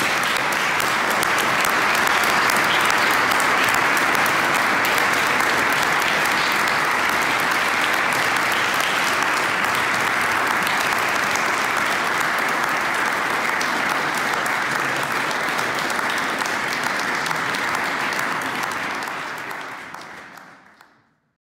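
Audience applauding steadily in a hall, fading out near the end.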